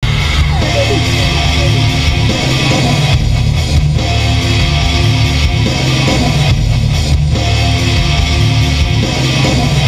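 Loud rock music with guitar, playing continuously as a soundtrack.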